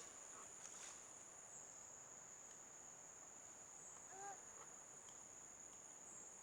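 Faint, steady high-pitched drone of insects, with a brief faint call about four seconds in.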